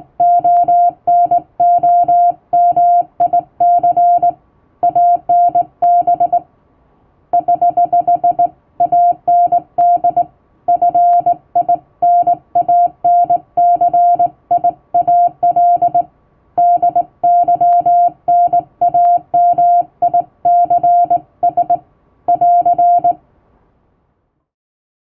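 Hand-keyed Morse code in English plain text: a single steady beep switched on and off in quick dots and dashes, in letter and word groups with short pauses between them. The sending stops near the end.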